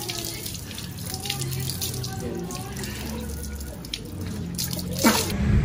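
Water poured from a plastic dipper over a person's head to rinse the hair, splashing and dripping onto a concrete floor. Near the end comes a short, loud swish falling in pitch.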